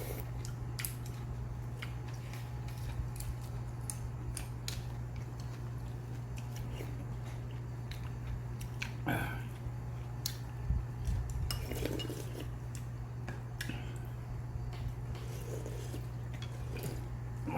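Eating utensils clinking and tapping against bowls and dishes during a meal: scattered light clicks, with soft eating sounds now and then. A steady low hum runs underneath.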